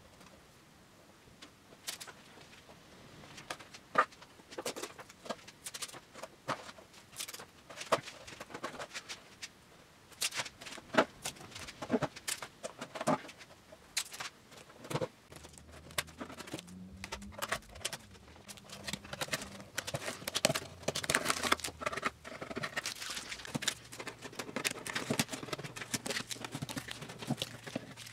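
Workbench handling noise: scattered light knocks and clicks as the wooden octave mandolin body and tools are moved about, and masking tape pulled from a roll and torn into strips to clamp the glued ebony binding, with denser rasping later on.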